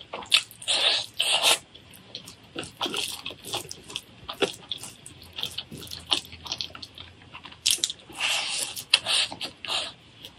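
Close-miked eating sounds: wet chewing and smacking of meat curry and rice eaten by hand, with irregular mouth clicks and crunches and a few louder bursts of chewing.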